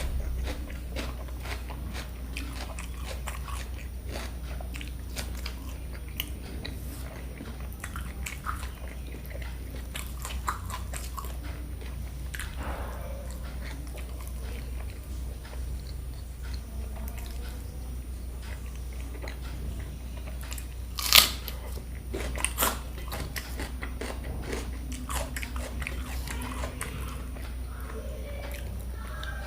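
Close-up eating sounds: steady chewing and biting with many small crunchy clicks, over a steady low hum. A sharper, louder knock comes about two-thirds of the way through.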